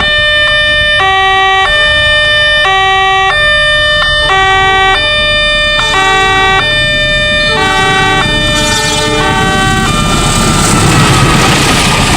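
Railway level-crossing warning siren sounding a hoarse two-tone alarm, a high and a low note alternating about every eight-tenths of a second. From about six seconds in the pattern grows tangled, and about ten seconds in the rushing noise of a passing train rises beneath it.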